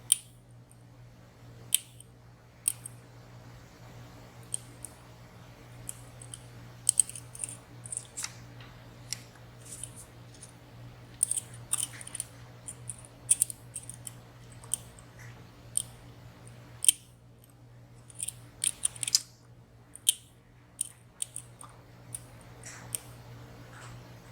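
Irregular metallic clicks and ticks of lock picks and a tension tool working inside a WSW W10 slider padlock, dozens of them at uneven spacing, a few sharply louder, over a steady low hum.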